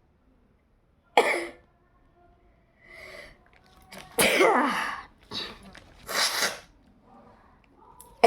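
A person sneezing several times in a row, each sneeze a sudden loud burst of breath. The loudest comes just past the middle with a falling voiced cry.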